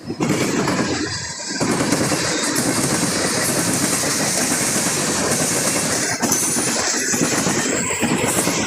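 Freight cars of a passing manifest train rolling by on the rails, a steady loud rumble and rattle of wheels on track.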